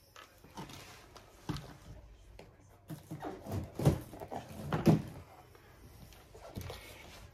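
Handling noise of a cloth drawstring bag and a cloth-wrapped canvas roll being moved and set down on a table: soft rustling with a few dull thumps, the loudest about four and five seconds in.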